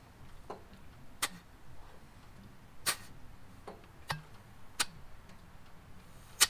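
About five sharp, irregularly spaced clicks from a Lycoming IO-540 aircraft engine being turned over slowly by hand at the prop, the last one near the end the loudest.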